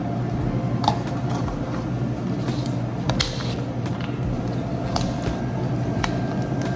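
Paper ice cream cups and a clear plastic dome lid being handled and set down on a counter: a few light clicks and knocks over a steady low machine hum.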